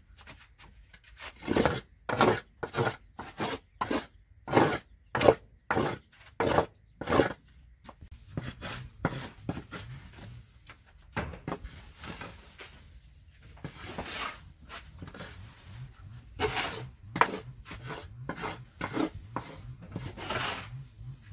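Dry husk litter being scraped across a concrete floor with a wooden board in quick strokes, about two a second, for several seconds; then quieter rustling and scraping as the litter is scooped up with a plastic dustpan, with another run of strokes near the end.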